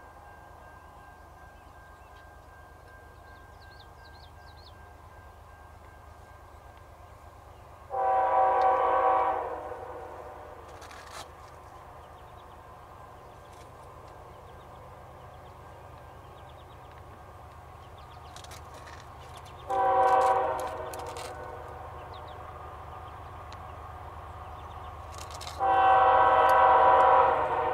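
A distant Canadian Pacific freight locomotive's air horn sounds three times: a long blast about eight seconds in, a short one about twelve seconds later, and another long blast near the end. These are crossing signals as the train approaches the grade crossings. A low steady rumble lies under the horn throughout.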